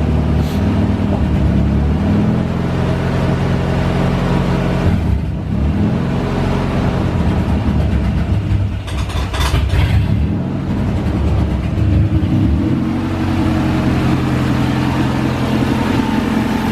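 Honda H22 inline-four engine running, its engine note wavering between about five and thirteen seconds in, then settling into a steady, smooth idle now that a new throttle body has cured the surging idle.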